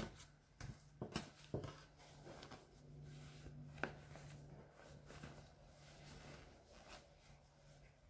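Faint rustle and rub of a jacket's fabric being folded and rolled by hand on a wooden table, with a few soft taps and knocks as hands and cloth meet the tabletop.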